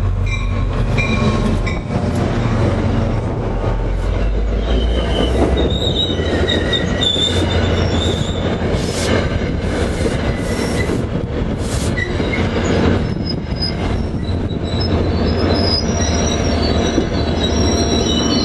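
Diesel-hauled commuter train passing close: the locomotive's heavy low rumble first, then the coaches rolling by with rail noise and intermittent high-pitched wheel and brake squeals as the train slows.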